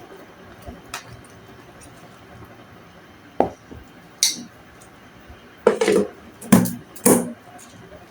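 Dishes and cutlery clinking and knocking as they are handled: a few separate clinks and clatters, starting about three seconds in and bunched most loudly a little past the middle.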